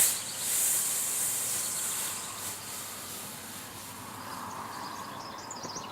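Two smoke-ball fireworks burning together, giving a high hiss that is strongest for the first couple of seconds and then fades to a fainter hiss.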